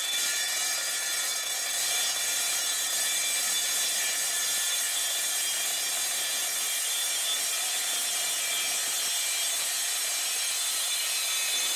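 Evolution R255SMS sliding mitre saw, its multi-material blade cutting through 3 mm steel angle: a steady, high-pitched metal-cutting whine with a hissing edge.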